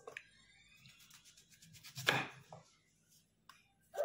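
Kitchen knife cutting through a large eggplant on a wooden cutting board: a quick run of fine crackling ticks as the blade goes through the firm skin and flesh, then a loud knock of the blade on the board about two seconds in.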